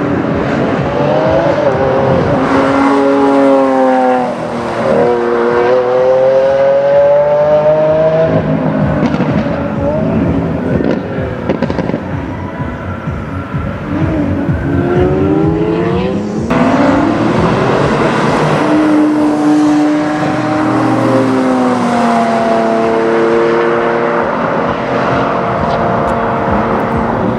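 Lamborghini Aventador S V12 accelerating hard. The engine note climbs in pitch, drops back at each upshift (about 4 s in and again around 16 s), then climbs again. Between the pulls it lifts off with popping exhaust crackles.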